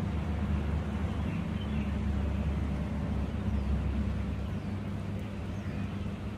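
A steady low outdoor rumble, with a few faint wild bird chirps and short falling calls above it.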